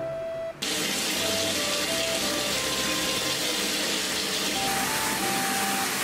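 Bath faucet running into a tub: a steady rush and splash of pouring water that starts about half a second in. A light background music melody plays over it.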